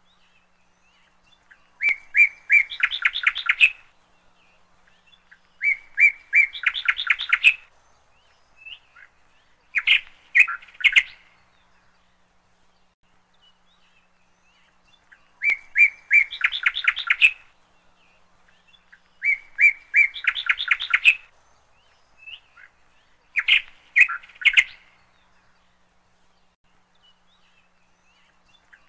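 A small bird singing: short phrases of a few chirps running into a quick trill, repeated every few seconds.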